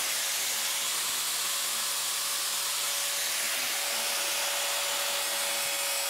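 Angle grinder running steadily against a plywood beehive lid, a loud even hiss with one steady whine over it.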